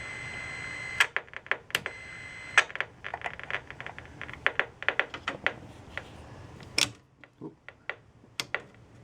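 Irregular clicking of push-buttons and switches on a Com-Ser Laboratories BR-1001-A radio service monitor. A steady high-pitched tone from the unit's speaker runs for the first two and a half seconds, and a low hum under the clicks stops about seven seconds in.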